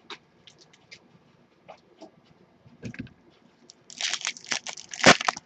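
Foil wrapper of a trading-card pack being torn open and crinkled by hand: a few faint handling clicks at first, then loud crackling and tearing from about four seconds in.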